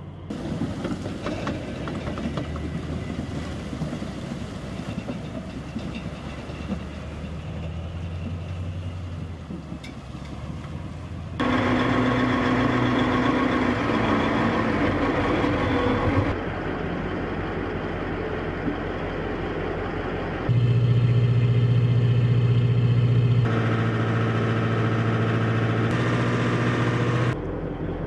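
Assault amphibious vehicle's diesel engine running steadily while swimming a river, first from the bank, then louder inside the hull as a steady hum with sustained pitched tones. The level jumps abruptly several times.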